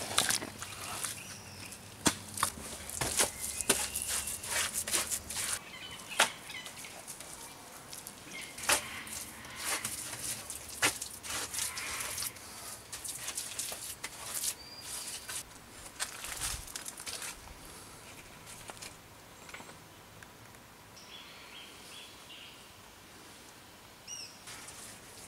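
Scattered sharp knocks and scrapes of hand work in soil and clay, denser in the first half. A few short high bird chirps come near the end.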